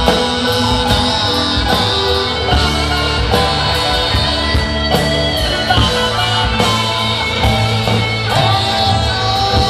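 Live rock band playing a song: strummed acoustic and electric guitars over keyboard, bass and drums with a steady beat.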